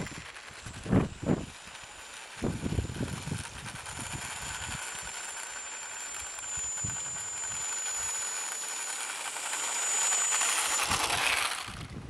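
Remote-control airplane's motor whining in flight: a steady high whine that shifts pitch in small steps, grows louder near the end and then cuts off suddenly.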